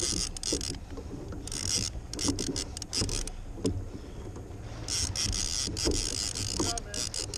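Fishing reel running in three bursts of fast, hissy clicking during the fight with a hooked roosterfish, over a low rumble of wind on the microphone.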